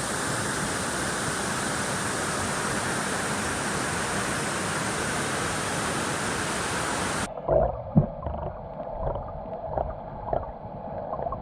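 Waterfall plunging into a rock pool, a steady, even roar. About seven seconds in it cuts abruptly to a duller, muffled sound of water sloshing and splashing close by, with a few knocks.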